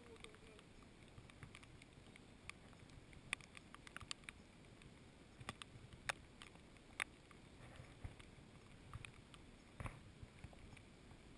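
Raindrops ticking irregularly on the camera housing, a few dozen scattered sharp clicks, over a faint steady hiss of rain on the river.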